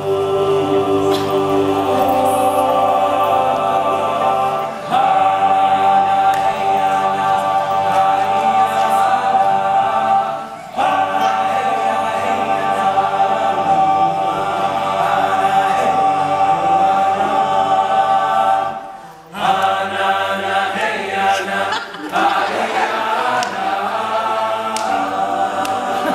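All-male a cappella group singing in close harmony, holding sustained chords, with brief breaks between phrases about five, eleven and nineteen seconds in.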